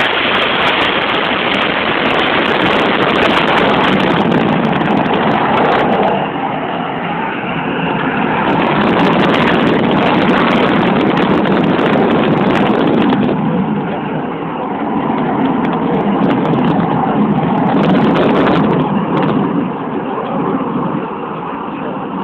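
Aircraft engine noise: a loud, rough roar without words that swells and eases over several seconds.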